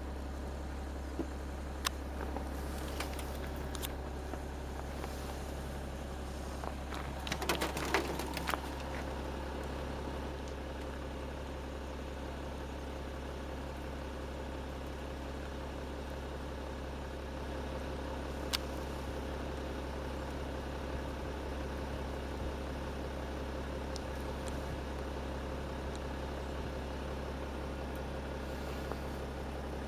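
Car engine idling, a steady low hum, with a few scattered clicks and a brief burst of rustling and clicking about seven to eight seconds in.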